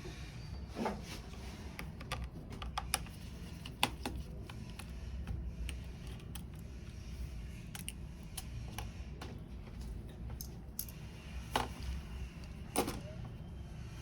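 Small tools clicking and tapping against the opened phone's parts during disassembly, scattered irregularly, with a few sharper clicks about a second in, near four seconds and twice near the end, over a steady low hum.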